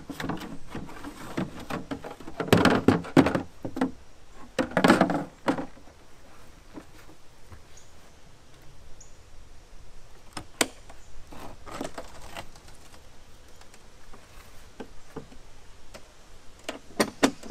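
Hollow plastic knocks and scrapes as the jet ski's storage bin and hatch lid are handled and lifted out, followed by a few separate sharp clicks and clunks as the seat latch is worked and the seat hood over the engine is raised.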